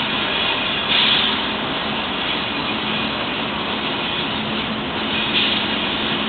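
Norfolk Southern GE Dash 9 and EMD SD40 diesel locomotives passing with a steady engine drone as they lead a double-stack train. Two brief louder, higher-pitched swells come about a second in and again near the end.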